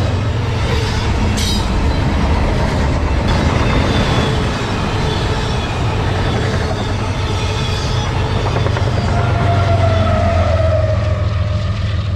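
Freight cars of a Canadian Pacific train, double-stack container well cars and autoracks, rolling past close by: a steady loud rumble of wheels on rail with faint drawn-out wheel squeals. The last car clears near the end.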